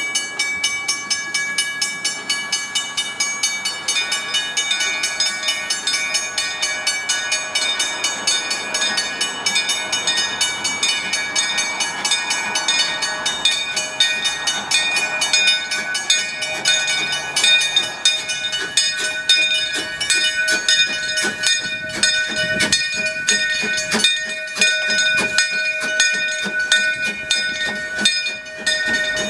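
Small Henschel 2-foot gauge steam locomotive running slowly past, with a steady high ringing tone throughout and a rapid run of clicks and clanks. The clanks grow stronger near the end as it comes alongside.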